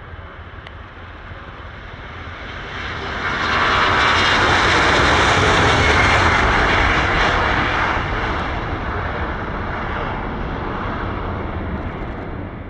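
Boeing E-4B's four General Electric CF6 turbofans at takeoff power as the jet climbs out. It is a steady jet roar with a high whine that swells to its loudest a few seconds in, then eases slightly.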